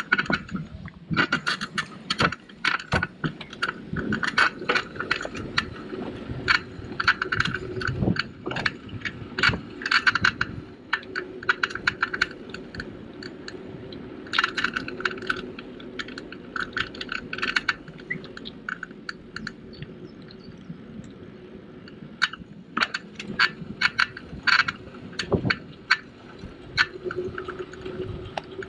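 Folding bicycle rattling and clattering as it is ridden over a paved path: irregular clusters of sharp metallic clicks over a steady hum.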